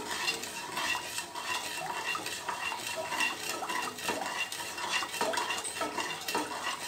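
Wooden spatula stirring sugar and water in an aluminium pressure-cooker pan, with irregular scrapes and knocks against the metal, while the sugar dissolves for syrup.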